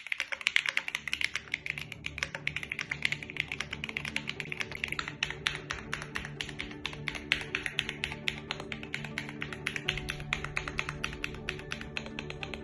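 Fast, continuous typing on a Keychron Q5 Max mechanical keyboard: a dense, even run of keystrokes, about eight to ten a second, with the deep 'thock' the board is known for. Background music plays beneath the typing.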